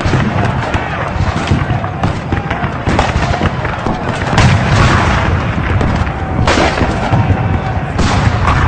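Battle sound effect: dense gunfire with repeated heavy booms over a continuous low rumble, with several louder blasts standing out.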